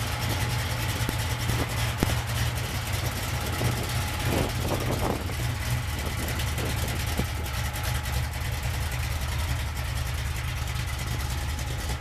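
Oldsmobile Cutlass engine idling steadily with a deep, even exhaust rumble.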